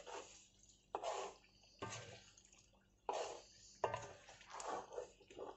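Ladle stirring a thick, oily acar mixture of dates, shallots and garlic in a wok: about six short wet scrapes, some with a light metal clink.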